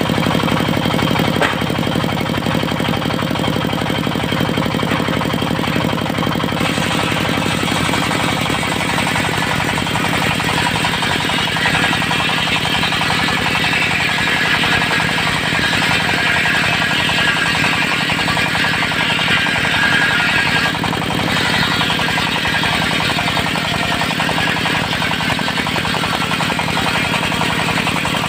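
Diesel engine running a portable circular sawmill, with the saw blade cutting mahogany. A cut starts about six seconds in, builds into a strong hiss and stops sharply about three quarters of the way through.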